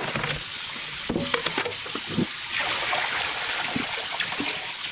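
Kitchen faucet running into a bowl of cut potatoes as they are rinsed to wash off the starch, water splashing in the bowl with a few light knocks. Near the end the bowl is tipped and the water poured off into the sink.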